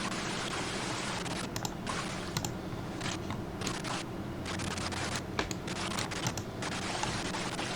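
Scattered keyboard and mouse clicks over a steady hiss that drops out and returns several times.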